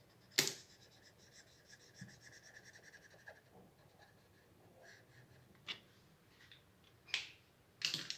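Felt-tip marker scribbling quickly back and forth on paper to fill in a shape, in even strokes several times a second for about three seconds, after a sharp click about half a second in. A few separate clicks and taps near the end.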